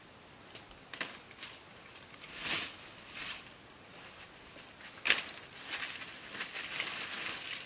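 Rustling and crackling of dry leaves and twigs as a person moves through undergrowth and handles dry sticks, with a sharp crack about five seconds in.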